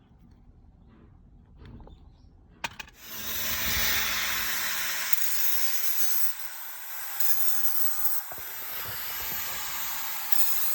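Faint small ticks and taps, then a sharp click about three seconds in, followed by a loud, steady hiss of a pressurised spray jet that runs until just before the end, during the overhaul of a mechanical fuel pump.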